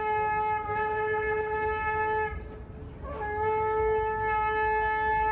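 Shofar (ram's horn) blown in long, steady, single-pitched blasts. One held note breaks off about two seconds in, and a second blast starts about a second later.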